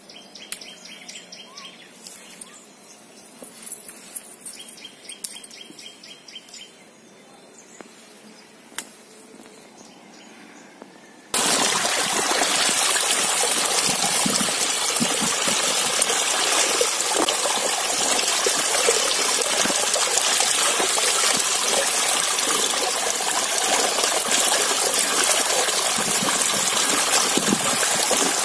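Water gushing steadily from an open PVC pipe outlet onto drumstick pods in a steel plate as they are rinsed by hand, starting suddenly about eleven seconds in and the loudest sound throughout. Before it, quieter birds chirping with a few light rustles and snaps.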